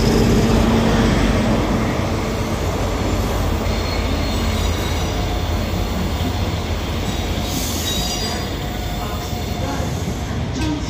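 GWR InterCity 125 coming into the platform: the Class 43 power car's diesel engine passes with a steady low drone, loudest in the first couple of seconds. Then the Mark 3 coaches roll past with a steady rumble of wheels on rail that slowly eases off.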